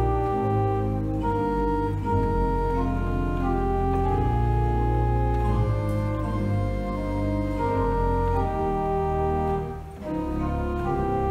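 Two-manual church organ playing slow, sustained chords over held low bass notes, with a short pause between phrases near the end.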